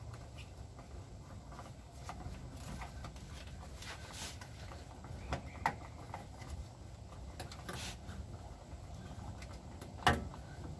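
Handling noise of a collapsed, zip-tied rubber air spring being worked up into a pickup's rear coil spring: scattered scuffs and light knocks, with a sharper knock about ten seconds in, over a low steady rumble.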